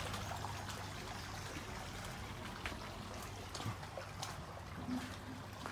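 Faint, steady trickle of water at a swimming pool, with a few soft clicks.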